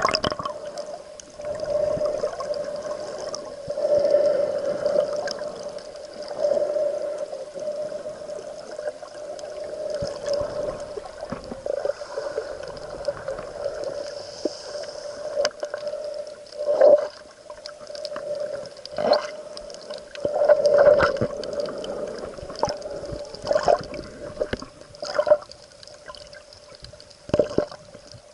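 Muffled underwater sound picked up through a waterproof camera housing: water gurgling and sloshing over a steady hum. In the second half there are sudden splashes or knocks every couple of seconds.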